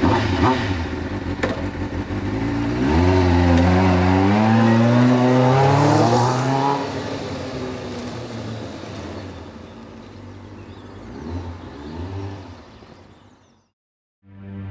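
Kawasaki sportbike's inline-four engine running just after starting, then revving up as the motorcycle pulls away, its pitch rising for about four seconds. It then fades into the distance, with a couple of brief rises in revs near the end.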